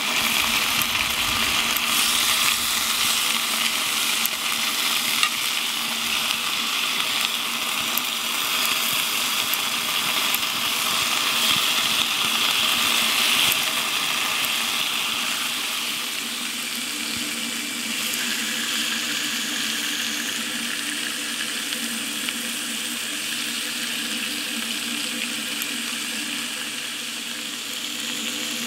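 Marinated spicy chicken sizzling and frying in a cast-iron skillet, a steady hiss that eases slightly about halfway through. A few faint clicks come from the tongs and kitchen scissors cutting the meat over the pan.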